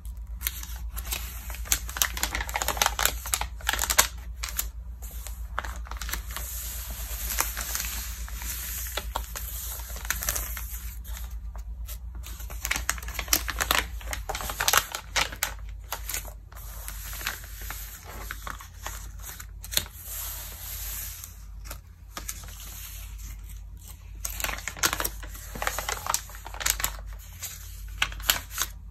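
Glossy magazine pages being handled and turned by hand: crisp, irregular crinkling and crackling of the paper, with a page turned about halfway through, over a steady low hum.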